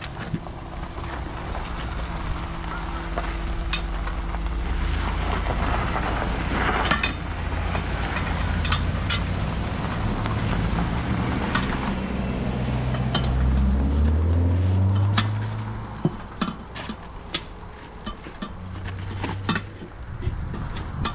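A 1968 Ford Thunderbird's 429 V8 running under way, its note rising in pitch in steps as it picks up speed, then dropping away about fifteen seconds in. Scattered sharp clicks and knocks follow.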